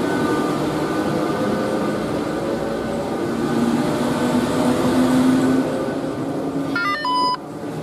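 Machinery in the valley drive station of a 1972 Trojer fixed-grip two-seat gondola, running steadily as cabins pass: a continuous mechanical drone with a few held tones, one rising slightly in pitch around the middle. About seven seconds in, a ski-pass gate reader gives a short run of electronic beeps.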